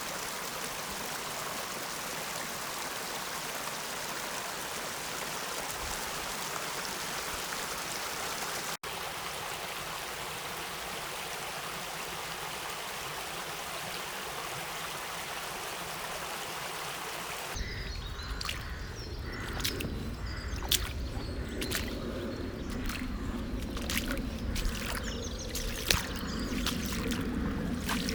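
Steady rush of a river running, an even hiss, with a brief break about nine seconds in. About two-thirds of the way through, the sound changes to a low rumble with scattered sharp clicks and knocks.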